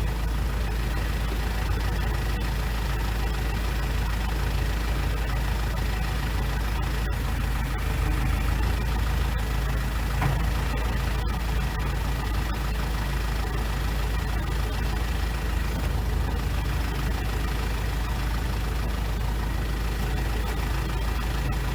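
Kubota L4701 tractor's four-cylinder diesel engine running steadily while its front-loader forks are used to lift and roll a log.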